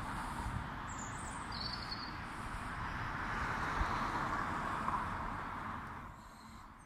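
Road traffic: a passing car's tyre and engine noise that fades away about six seconds in.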